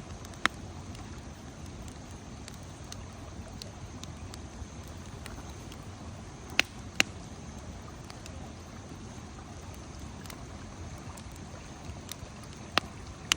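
Wood campfire burning: a steady low rush with scattered faint crackles and five sharp pops, two of them close together about halfway through.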